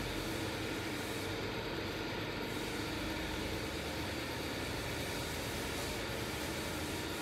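A machine running steadily: a constant rushing noise with a faint low hum, unchanging throughout.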